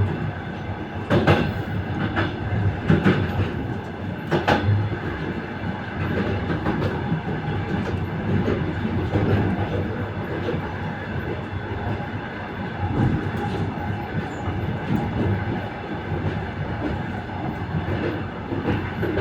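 Passenger train wheels clattering over rail joints, heard from the vestibule at the end of a carriage, over a steady rumble of the running train. Several sharp clacks come in the first few seconds, then the run goes on more evenly.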